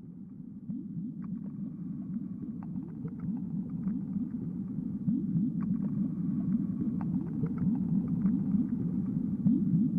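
Atmospheric intro of a progressive rock recording: a low rumbling drone full of short rising swoops, with scattered clicks and ticks above it, swelling gradually louder.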